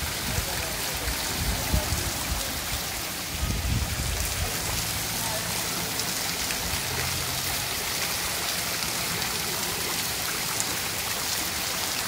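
Fountain water jetting from the mouths of bronze dolphin sculptures and splashing steadily into the basin below, a constant rain-like hiss.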